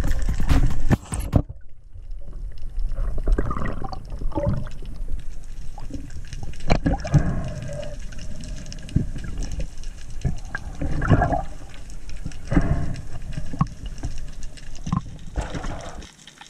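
Underwater camera audio: water sloshing and gurgling around the housing, with irregular knocks and bumps as a speared sea bass is handled. Music cuts off about a second in.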